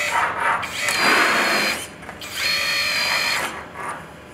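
Electric hydraulic pump of a Double E E111-003 1:14-scale RC Volvo EC160E excavator whining in two runs of about a second each as the arm moves. The system is under load to test the relief pressure just raised at the adjusting screw.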